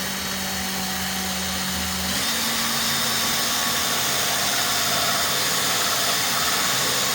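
Electric hand drill running steadily, spinning a plexiglass disc on a bolt while its edge is wet-sanded with 400-grit paper, with a hiss of sanding over the motor hum. The motor's pitch steps up slightly about two seconds in.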